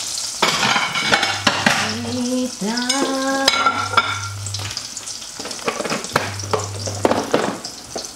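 Fried eggs sizzling in hot oil in a frying pan, a steady crackling hiss, with a few clinks of crockery and a short rising pitched sound about three seconds in.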